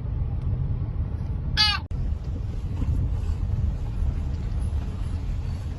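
Steady low rumble of a moving road vehicle, with some wind on the microphone. A short high-pitched tone sounds once about one and a half seconds in, followed by a brief dropout.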